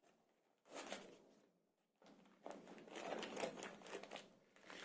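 Faint rustling and crinkling of plastic bag packaging handled inside a foam-lined cardboard box as a harmonic drive is lifted out. There is a brief rustle just under a second in, then irregular crinkling from about halfway on.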